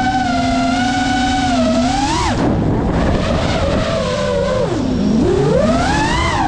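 Brushless motors and propellers of a 5-inch FPV racing quadcopter whining with a rushing air noise beneath. The pitch holds steady, jumps up sharply about two seconds in and falls away as the throttle is cut, sinks low around five seconds in, then climbs again near the end as the throttle comes back.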